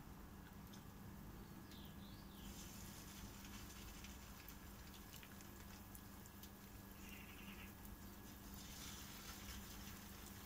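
Faint sizzling of crab-stick fritter batter frying in hot oil in a frying pan, over a steady low hum; the hiss grows a little brighter near the end.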